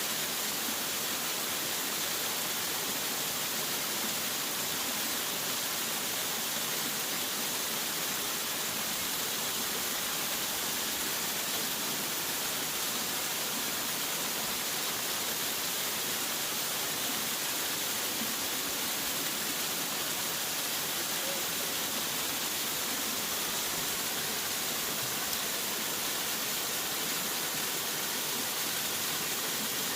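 Waterfall: a steady rushing of falling water, even and unbroken, weighted toward the hiss rather than a deep rumble.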